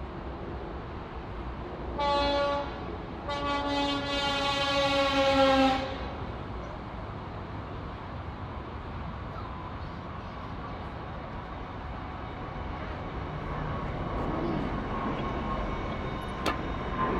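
Train horn sounding twice, a short blast and then a longer one that dips slightly in pitch, over the steady rumble of a passing train.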